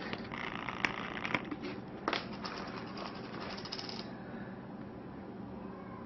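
Small clicks and rustles of handling as metal tweezers are worked at a wound on an absorbent pad, dense for about four seconds and then quieter.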